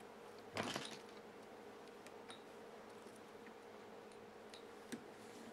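Faint handling sounds of a whip-finish tool wrapping and tightening thread at the head of a fly in the vise. There is a short soft burst of noise about half a second in and a few light ticks, over a faint steady hum.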